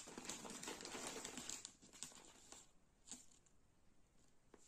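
Clear plastic packaging bag crinkling as it is picked up and handled, densely for about the first second and a half, then a few scattered crinkles.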